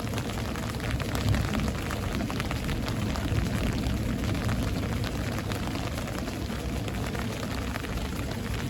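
Rain falling steadily during a thunderstorm, with many fine drop ticks over a continuous low rumble.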